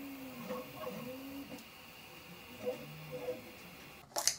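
Prusa i3 MK3S 3D printer's stepper motors whirring in repeated rising and falling tones as the print head moves while printing. A sharp click near the end.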